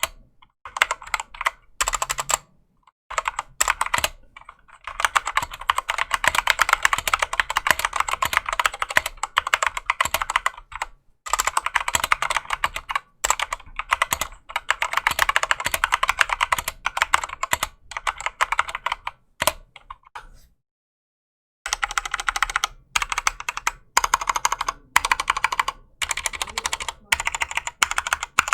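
Typing on a Drop CTRL mechanical keyboard with stock Gateron Clear linear switches, before case foam and stabilizer lube: fast runs of key clacks in bursts, broken by short pauses, one about a second long two-thirds of the way through.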